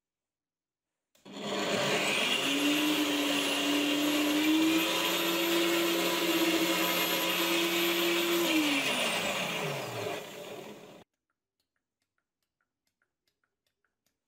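Bench-mounted angle grinder with a sanding disc, used as a disc sander: it starts about a second in and spins up with a rising whine. It runs steadily for about seven seconds, then winds down with falling pitch and cuts off suddenly near the end.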